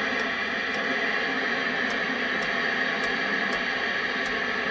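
Colt 295 CB radio hissing with static from its speaker, a steady rush of noise with faint irregular ticks, the receiver open on a channel where nobody is transmitting.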